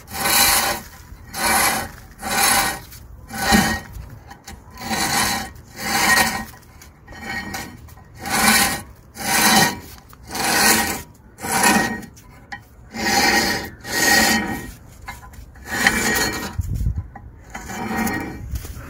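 Flathead screwdriver scraping rust off the edge of a front brake disc while the disc is turned by hand, in rasping strokes about once a second.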